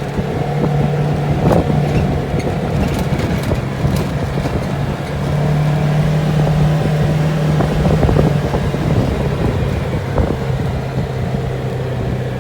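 ATV engine running steadily, its pitch rising a little about five seconds in and dropping back around eight seconds, with a few knocks and rattles.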